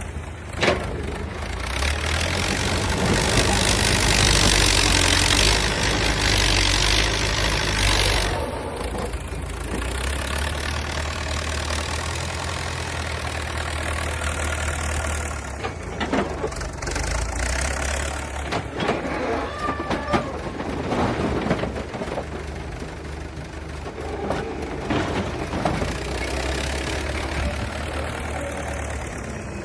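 Diesel engine of heavy construction machinery running under load. It is louder with a hiss for several seconds near the start, then settles, and scattered knocks and clunks follow in the second half.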